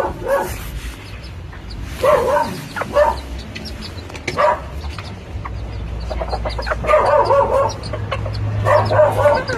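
Serama bantam hen clucking in short bursts, several clustered calls, over many brief high peeps from her chicks, with a steady low hum underneath.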